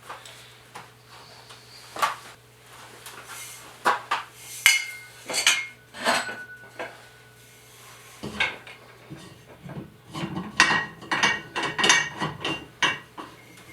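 Steel telepost being set in place and adjusted under the joist: scattered metal clanks and clinks, some ringing briefly, with a low thud and then a quick run of clinking over the last few seconds.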